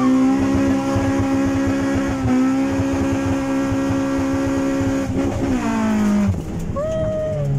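A Nissan's engine and exhaust revving hard under acceleration, heard from inside the cabin: the engine note holds high and steady, then falls away about five seconds in as the driver lifts off.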